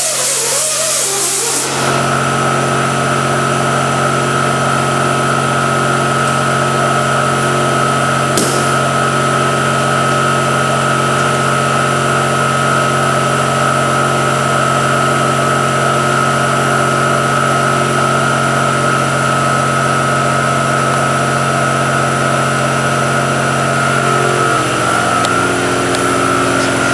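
Brief music, then a steady mechanical hum of a running motor with a constant whine. Its lower tones shift slightly near the end.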